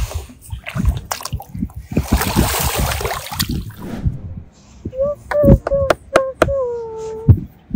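Toys knocking about, then a rush of splashing water for about two seconds. Near the end a voice sings a few held, wordless notes that slide downward.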